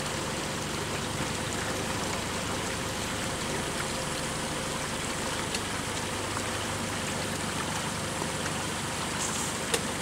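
Steady rushing of stream water with a faint, steady low hum beneath it, and one sharp knock near the end.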